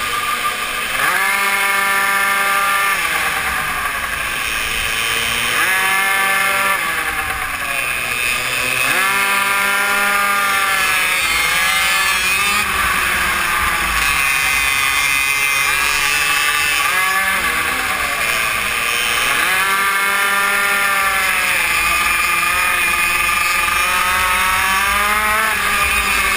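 Super mini moto's small engine, heard from on the bike, repeatedly rising in pitch as it accelerates out of each corner and dropping back as the throttle closes, about every three to four seconds.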